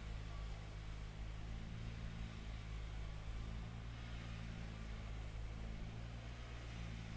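Road grader's engine running at a steady, unchanging pitch, a low hum under a light hiss.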